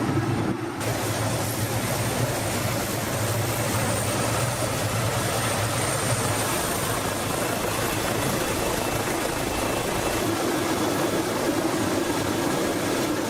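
Helicopter running steadily, a dense engine-and-rotor noise with a thin high turbine whine that grows clearer near the end.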